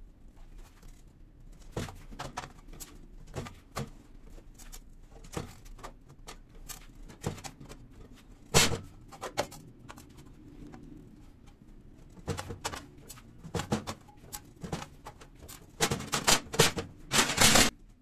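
Hand-lever metal shear cutting sheet steel strip: a series of sharp metallic clicks, snips and clanks as the blade bites and the strip is shifted. One loud snap comes about eight and a half seconds in, and a quick cluster of clanks comes near the end.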